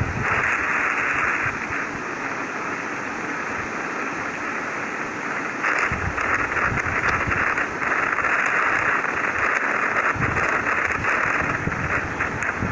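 A 'sound of Mars' space-audio recording playing back as a steady rushing hiss without any clear tone. It is louder at first, eases, then swells again about six seconds in.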